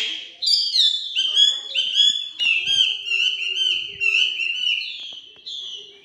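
Caged Chinese hwamei singing a fast, loud string of whistled notes, about three or four a second, in response to a recorded female hwamei call; the song fades near the end.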